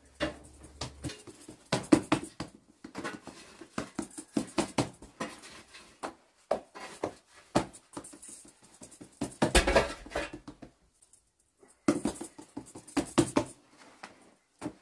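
Hands patting, pressing and slapping a round of flatbread dough on a cloth-covered bread cushion: a quick, irregular run of soft pats and slaps, with a short pause about three-quarters of the way through.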